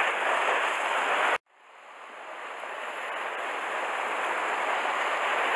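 Rough surf washing over rocks, a steady rushing noise. It cuts off abruptly about a second and a half in, then fades back up to the same rush over the next few seconds.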